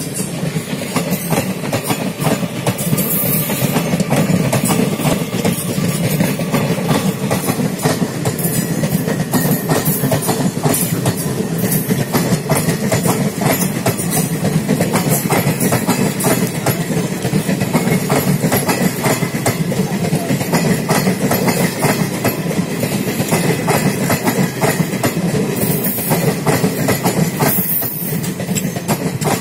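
Blue Indian Railways express coaches passing slowly: a steady rumble with the clickety-clack of steel wheels over the rail joints, many sharp clicks following one another.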